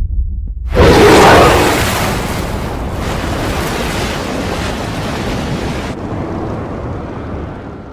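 Film sound effect of a huge explosion: a sudden loud blast about a second in, followed by a long rumbling, hissing decay that fades over several seconds.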